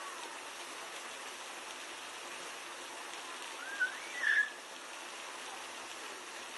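Steady hiss and splatter of water running from a keeper's hose while an African elephant drinks from it. About four seconds in comes a brief, high, wavering call, the loudest sound here.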